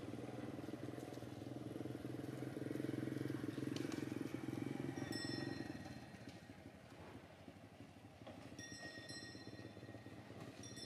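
A vehicle engine running steadily, then fading away about six seconds in. After that come a few brief, thin, high-pitched whistle-like tones.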